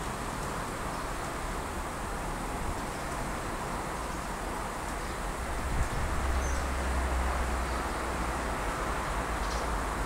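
Steady outdoor background noise, an even hiss over a low rumble. A single knock comes just under six seconds in, and the rumble grows louder right after it.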